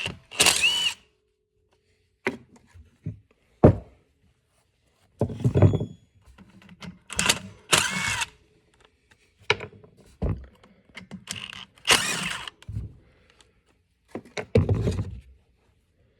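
Pump parts being pulled apart and handled: a series of separate clunks, knocks and scrapes with pauses between them.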